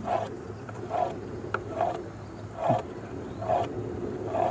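Knife cutting a thin rolled sheet of maida dough into strips on a wooden board: a short cutting stroke a little under once a second, six in all, over a steady low hum.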